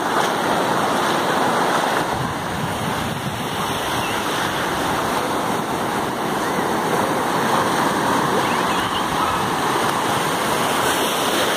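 Ocean surf breaking and washing in over a sandy beach: a steady rush of water and foam that swells and eases slightly.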